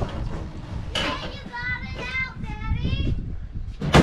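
A child's high voice singing or calling out in a wordless, wavering tune, over a low rumble. A loud thump near the end.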